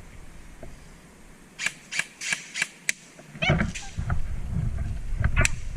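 Airsoft guns firing: a quick string of about five sharp shots a little over a second and a half in, with two or three more near the end. From about halfway through, a low rumbling noise runs under them.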